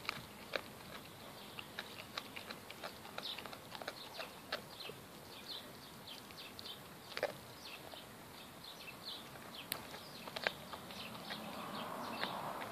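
Golden retriever chewing a whole raw rabbit with the fur and skin on: irregular wet crunching and clicking as its teeth work through meat and bone, with a few sharper cracks. A soft rushing noise builds near the end.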